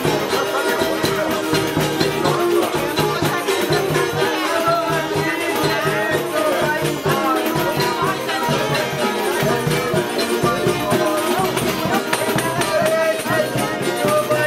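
Live folk ensemble playing: strummed guitars and small violas with a fiddle, over a steady beat from a stick-beaten drum and a hand-played frame drum.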